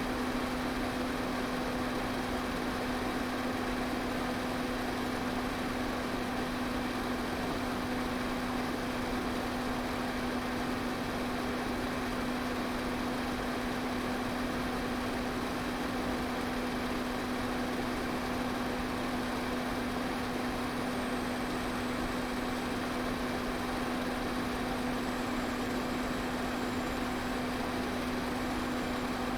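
Electric pedestal fan running steadily: an even rush of air over a constant motor hum.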